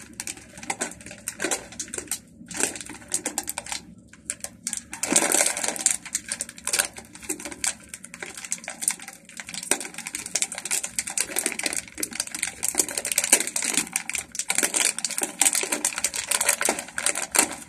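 Crinkling and crackling of a plastic corn-chip bag as hands twist and pull at it to get it open, a continuous run of sharp crackles.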